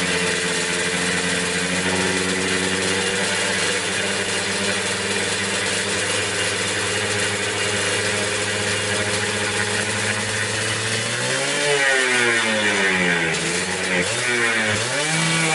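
Suzuki Satria's single-cylinder two-stroke engine idling steadily, then revved up and back down twice near the end.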